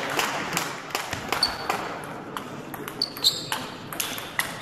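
Table tennis rally: the ball clicking off bats and table about three times a second, some hits with a short high ping, echoing in a large hall.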